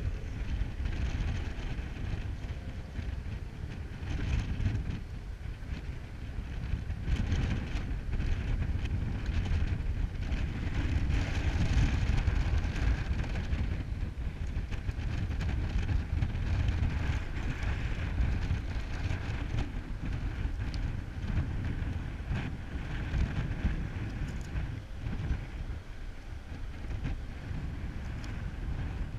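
Wind buffeting the microphone: a steady, uneven low rumble with a lighter hiss above it.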